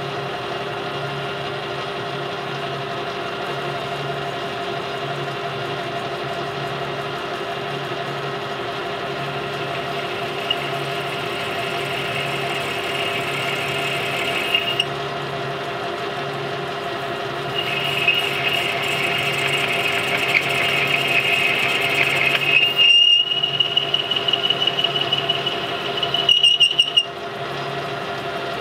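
Metal lathe running, a steady motor and gear hum with a slow regular throb, while a boring bar cuts inside a stainless steel bore. A high squeal from the tool comes in about ten seconds in, breaks off briefly, then returns and pulses near the end before stopping.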